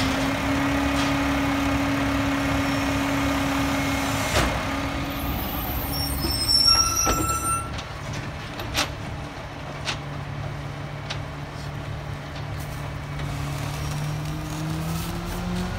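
Rear-loader garbage truck's diesel engine running steadily, with high squeals and a hiss of air brakes about six seconds in. Afterwards the engine runs at a lower pitch and climbs near the end as it revs up.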